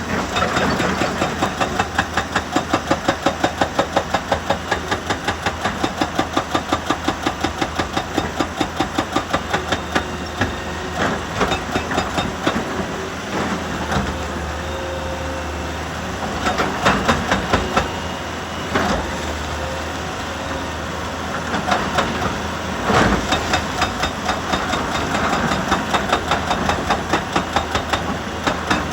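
Heavy quarry machinery running, with a rapid even pounding of about three to four beats a second. It gives way to a steadier drone with irregular knocks about halfway through, and the pounding comes back near the end.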